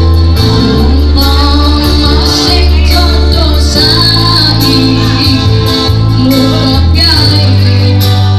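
A girl and a boy singing a Javanese-language song into microphones over amplified keyboard accompaniment with a heavy bass line, played loud.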